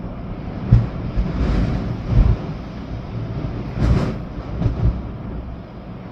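Storm wind gusting with steady rain hiss, the gusts buffeting the microphone as low rumbling surges about a second in, after two seconds and again at four seconds.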